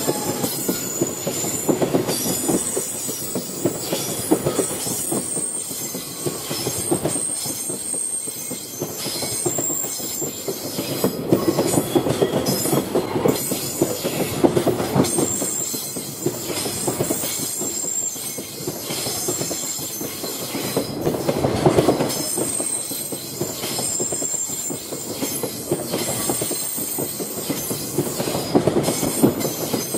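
Loaded Koki container wagons of a freight train rolling past: a steady rumble of wheels on rail, rhythmic clacking over rail joints, and a high-pitched wheel squeal that comes and goes.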